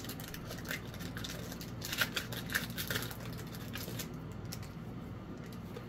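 Crinkling and light clicking of a foil Pokémon booster pack wrapper and its cards being handled, a rapid run of small crackles over the first four seconds that thins out toward the end.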